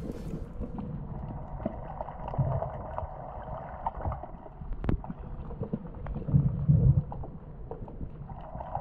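Muffled underwater sound picked up through a submerged camera housing: low rumbles of moving water and soft knocks, with one sharp click about five seconds in.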